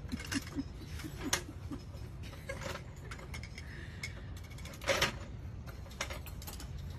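Scattered light metal clicks of a ratchet wrench being worked under a truck, with a louder clank about five seconds in.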